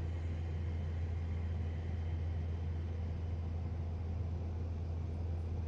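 Steady low hum with faint high tones above it, unchanging throughout.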